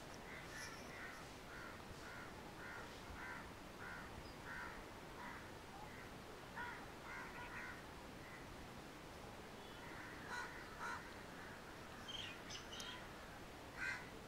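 Faint bird calls: a series of short calls at about two a second, then a few more scattered calls near the end.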